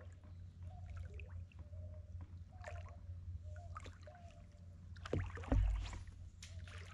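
Small fishing boat on the water: a steady low rumble with faint knocks, clicks and water noise, and a dull thump about five and a half seconds in.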